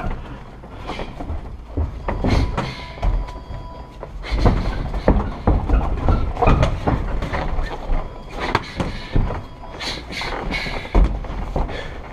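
Muay Thai sparring: irregular thuds, slaps and knocks of gloved punches and kicks landing, mixed with footwork on the ring canvas.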